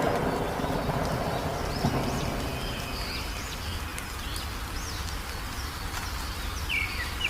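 Several wild birds chirping and whistling in short, scattered calls over a steady low rumbling background that fades over the first couple of seconds. A quick run of chirps comes near the end.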